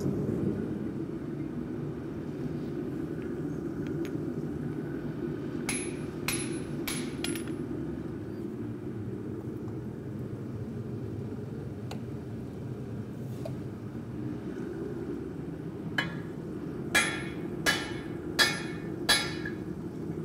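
Hammer blows on red-hot rail steel, each strike a sharp clang with a high ring: four quick blows about a third of the way in, then five louder blows near the end, roughly two a second, as the axe blank is forged on the anvil. A steady low rumble runs underneath.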